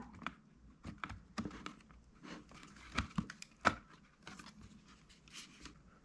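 Light handling clicks and scrapes of a 2.5-inch SATA SSD in its drive bracket being pressed into a laptop's drive bay and its cable being handled, irregular and scattered, with two sharper clicks about three and three-and-a-half seconds in.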